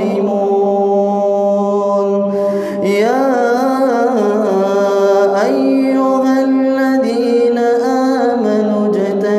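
A man reciting the Qur'an in melodic tajweed, drawing out the verse-ending word "al-zalimun" in long held notes. There is a short breath about two and a half seconds in, then the chant glides into further long, steady notes.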